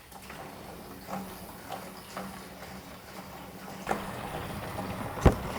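Scattered small knocks and clatter of handling over a low steady hum, with one sharp, loud knock near the end.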